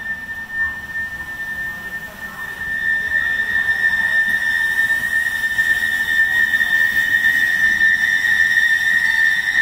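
CAF Urbos 3 tram's steel wheels squealing on a tight curve of track: one steady high-pitched squeal that grows louder about three seconds in, when a second, higher tone joins it.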